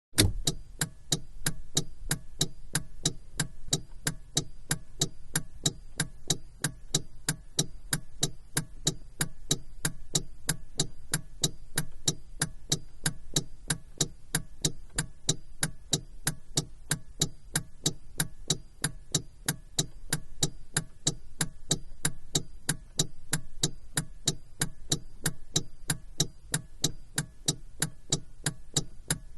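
Car turn-signal indicator ticking steadily inside the cabin, an even run of sharp clicks at a constant rate, over a steady low hum.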